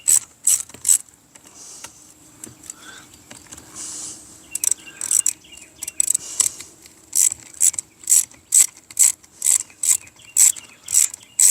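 A socket ratchet wrench clicking in short back-strokes, a few at first. Then, after a pause of about three seconds, a steady run of about two strokes a second to the end.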